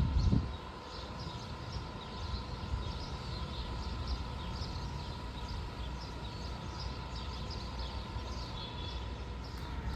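Background ambience: a steady low rumble with many short, high chirps like small birds over it.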